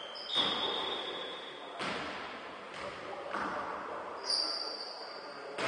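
Basketball game sounds on an indoor court: the ball bouncing on the floor with a couple of thuds, and long high-pitched squeaks, one at the start and another about four seconds in.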